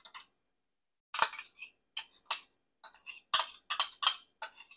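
A metal spoon scraping and tapping against a small glass bowl as sour cream is knocked out of it: a string of short clinks and scrapes, irregular, starting about a second in.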